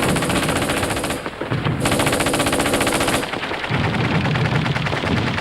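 Rapid machine-gun fire in long bursts, with a short break about a second in and the firing going on less sharply after about three seconds.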